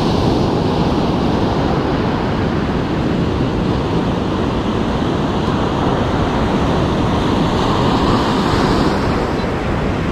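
Ocean surf breaking and washing up a sandy beach, a steady loud rush, with wind rumbling on the microphone.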